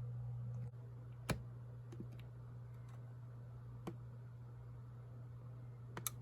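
A few short, sharp clicks and taps from handling a small plastic alarm clock and its power cord, about five in all with the first the loudest, over a low steady hum.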